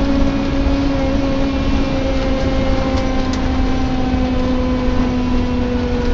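Scania K230UB single-decker bus heard from inside while under way: engine and road rumble with a steady groaning tone on top that slowly sinks in pitch.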